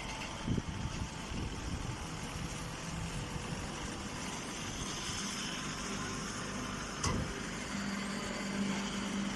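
Grass baler machine running with a steady mechanical drone, two short knocks, and a steady low hum joining near the end.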